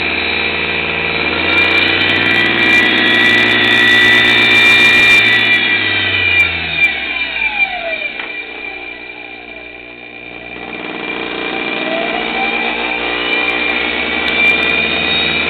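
DC treadmill motor driven by a repaired MC60 motor-control board, running with a steady whine. About seven seconds in its pitch falls as it slows almost to a stop, then it winds back up to speed.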